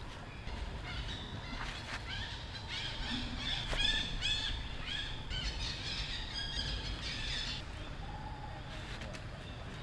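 A run of high, arched chirping calls, about two a second, over a steady low outdoor rumble.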